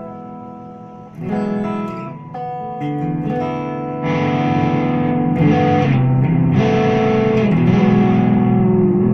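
Tagima Memphis MG37FL electric guitar played through an amplifier. A chord rings and fades, fresh chords are struck about a second and two seconds in, and from about four seconds in the playing grows louder and brighter.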